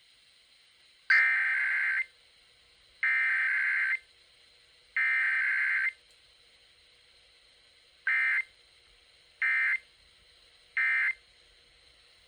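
Emergency Alert System SAME data bursts of a Required Weekly Test: three header bursts of raspy two-tone digital data, each about a second long and a second apart, then after a longer gap three short end-of-message bursts. No attention tone sounds between them, as is usual for a weekly test.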